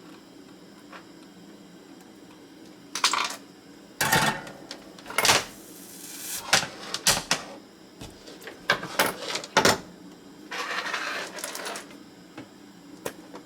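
Irregular sharp clicks and clatters of small hard tools and parts being handled and set down on a workbench during soldering work, starting about three seconds in, with a short hiss just before the end.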